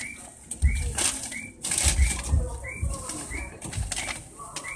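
Commuter train pulling out of an underground station platform, with low rumbling thuds and sharp clicks from its running gear. Over it, a short bird-like chirp repeats about every half second.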